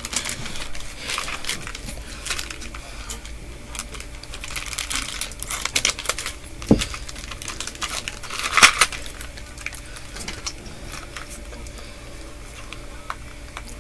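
Small cardboard box and packaging handled by hand: scattered crinkling, rustling and light clicks, with a short low thump about two-thirds of the way through and a louder rustle soon after.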